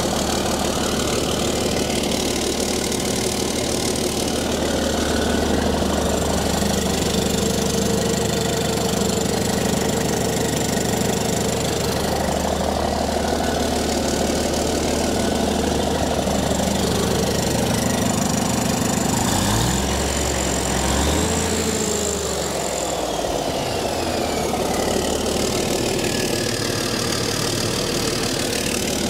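Cummins Big Cam III 855 inline-six turbo diesel idling steadily with open-engine diesel clatter, its sound shifting briefly about twenty seconds in.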